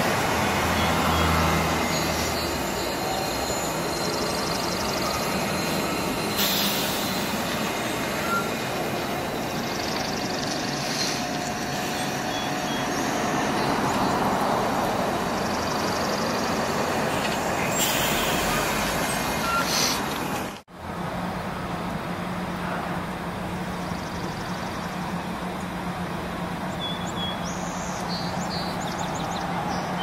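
Steady road-traffic noise from passing vehicles, with two brief loud hisses. Faint short bird chirps come through now and then.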